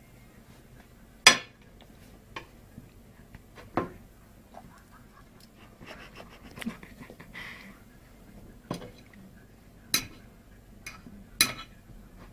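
Several sharp clacks of hard objects knocking together, spaced irregularly, the loudest about a second in.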